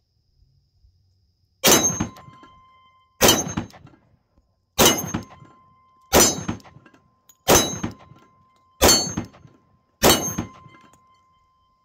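Seven shots from a Rock Island Armory TAC Ultra 10mm 1911-pattern pistol, fired at a steady pace about one and a half seconds apart. No eighth shot follows: the last round of the eight-round Ed Brown magazine hangs up feeding into the chamber.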